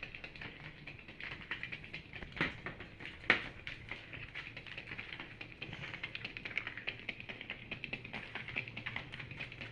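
Switched-on toy hamster in a plastic ball moving about, its mechanism giving a rapid, even clicking, with two louder knocks a couple of seconds in.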